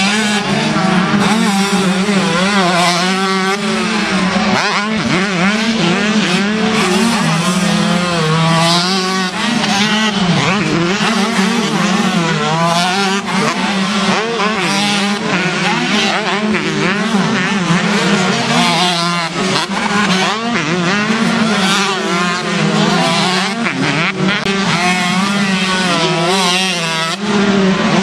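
Two-stroke motocross bike engines revving up and down over and over, the pitch rising and falling as riders open and close the throttle.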